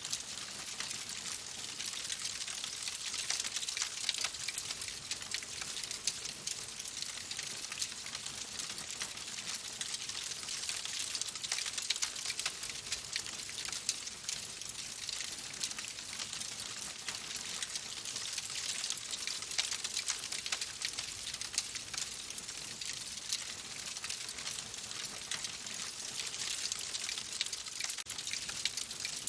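Wood fire burning in a fireplace: steady crackling made of many small, quick snaps and pops over a soft hiss, with no lulls.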